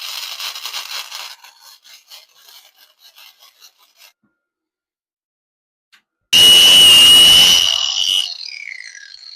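Gasless flux-core MIG welding arc crackling on thin 16-gauge steel, stopping about a second in, followed by a few faint ticks. About six seconds in, a loud handheld power tool with a steady high whine runs for about two seconds, then winds down with a falling pitch.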